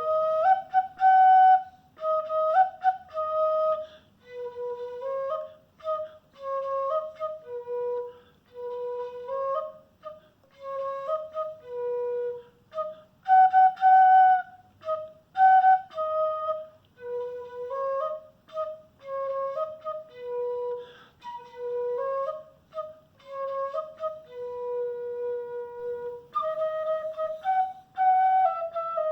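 Mbyá Guaraní mimby'i, a small five-hole flute of takuapí cane with a beeswax mouthpiece, playing an ancestral melody of short separate notes with brief gaps between phrases, with one note held longer near the end.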